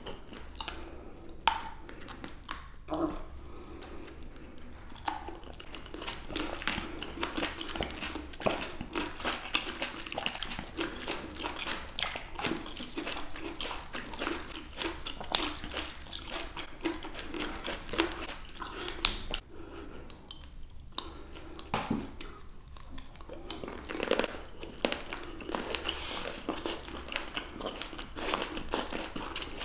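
Two people chewing and biting fresh grapes close to the microphone: wet, juicy chewing with many sharp clicks, the loudest about fifteen seconds in.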